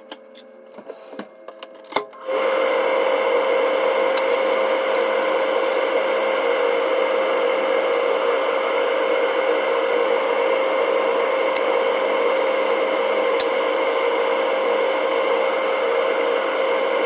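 A few light clicks and knocks of kitchen handling, then about two seconds in an electric motor switches on and runs steadily with a constant hum and a whirring noise, stopping abruptly at the very end.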